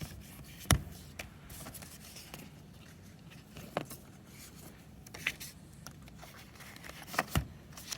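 Light handling sounds as the MacBook's paper documentation packet is opened and leafed through: soft rustling and scraping, with a handful of sharp taps and clicks, the last two close together near the end.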